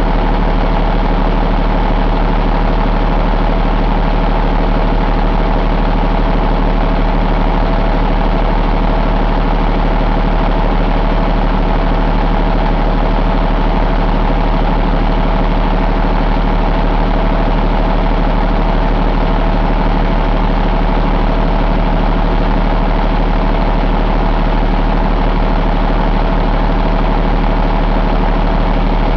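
2016 Cummins ISX15 15-litre inline-six diesel engine idling steadily, a low even diesel rumble that holds the same speed throughout.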